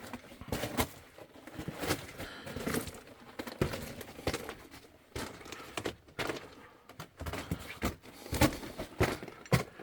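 Footsteps on loose rock and gravel underground: an irregular series of crunching steps and scrapes, about one or two a second.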